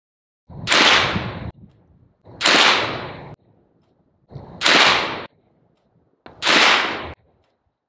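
Four shots from a 9mm AR-9 pistol with an 8.5-inch upper, fired slowly about two seconds apart. Each is a sharp crack with a short fading tail that cuts off abruptly.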